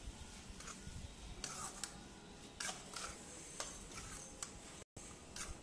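Metal spatula scraping and clicking against an aluminium kadai as goat lung pieces are stirred through thick ground masala: short, irregular scrapes and taps. The sound cuts out for an instant near the end.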